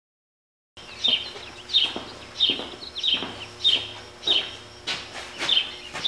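A bird calling: a sharp, falling call repeated evenly about every two-thirds of a second, starting about a second in.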